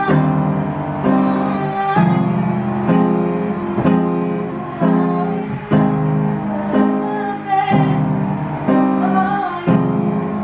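Upright piano played in repeated block chords, about one a second, with a woman singing over it.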